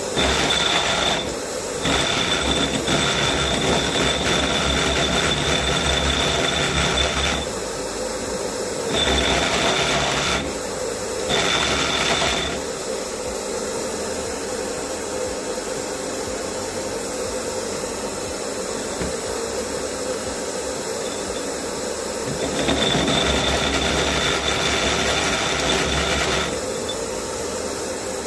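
SDS Plus rotary hammer drill driving a 65 mm carbide core bit into concrete, hammering in loud spells of a few seconds with a high whine. Between the spells, a quieter steady running sound.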